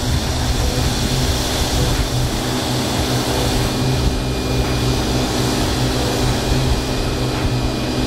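Steady rushing noise of a large fuel fire being hit by a hose jet, over the even hum of a fire pump engine running at high pressure.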